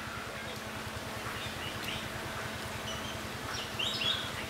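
Soft drink glugging steadily as it is poured from a plastic bottle straight into an open mouth, with a few short bird chirps over it.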